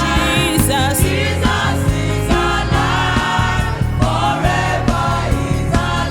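Youth gospel choir singing, with melodic runs and long held notes over a band with bass and a steady drum beat.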